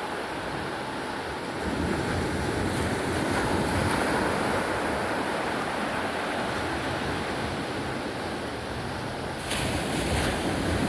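Sea waves washing onto the shore at high tide, a steady wash that swells about two seconds in, with wind buffeting the microphone and a sudden louder rush near the end.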